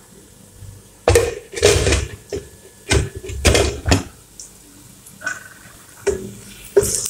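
Cookware clattering: a pot lid and pots being handled on a stovetop, giving a series of sharp knocks and clanks, the loudest cluster in the first few seconds.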